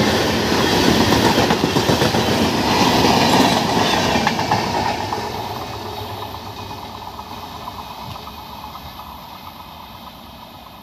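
Express passenger train's LHB coaches passing at high speed, their wheels clattering over the rails, then the sound fades steadily from about four or five seconds in as the tail of the train draws away.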